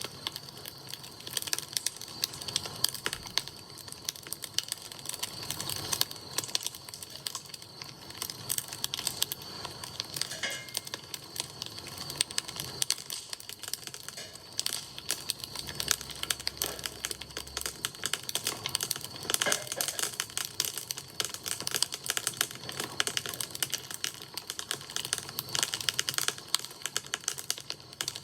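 Wood campfire crackling, with dense, irregular snaps and pops throughout.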